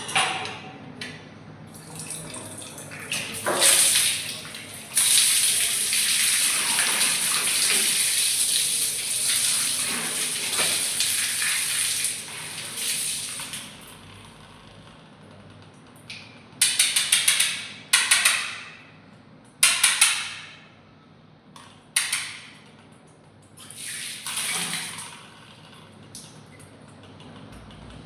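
Water running from a bathroom tap in a steady rush for several seconds, then a few short bursts as the flow is turned on and off.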